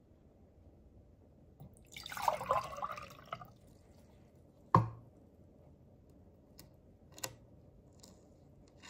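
Aquarium water being scooped out, splashing for about a second and a half. A single sharp knock follows about five seconds in, then a few faint clicks.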